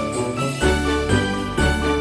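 Background music with a steady beat of about two pulses a second; a bass line comes in about half a second in.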